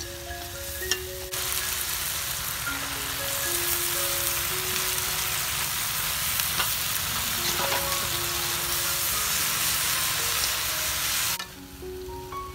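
Loud sizzling of leafy greens being stir-fried with chopsticks in a hot wok. The hiss starts suddenly about a second in and cuts off sharply near the end. A light melody of background music plays throughout.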